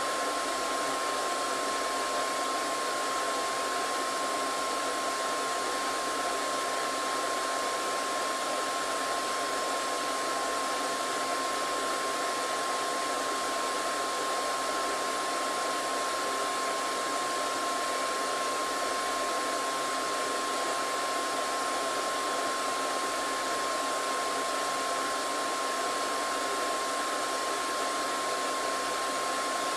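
Hair dryer running steadily: an even, unchanging rushing hiss of air with a steady whine of the motor.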